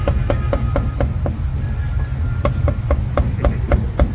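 Steel meat cleaver chopping cooked meat on a round wooden chopping block: quick, even knocks about four a second, with a pause of about a second in the middle before the chopping resumes.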